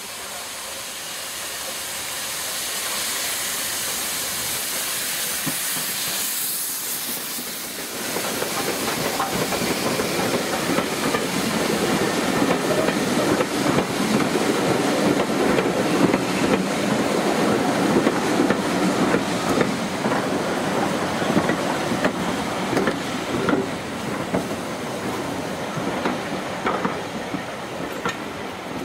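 Steam locomotive passing close with a hiss of steam that builds over the first few seconds. From about eight seconds in, its passenger coaches roll past, the wheels clattering and clicking over the rail joints.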